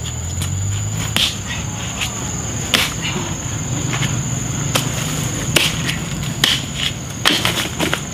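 Sharp cracks and crunching of dry bamboo sheaths and leaf litter as hands break off and dig out bamboo shoots at the base of the clump, about eight separate cracks. A thin, steady high-pitched tone and a low hum run underneath.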